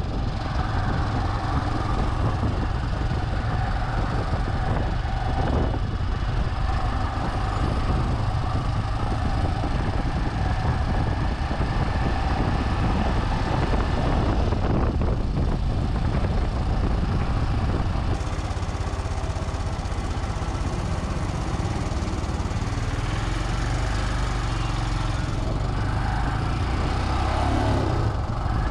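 Royal Enfield Himalayan's 411 cc single-cylinder engine running steadily as the motorcycle rides through city traffic, heard through a chest-mounted action camera's built-in microphone along with road noise.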